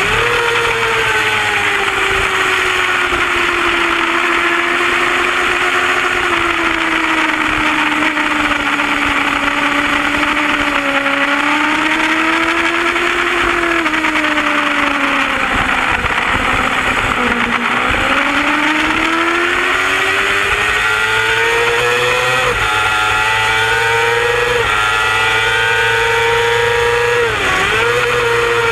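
Race motorcycle's engine running hard at high revs over a steady rush of wind. About halfway through, the pitch sinks as the bike slows for a bend, then climbs again under acceleration, with sudden drops as it shifts up in the last few seconds.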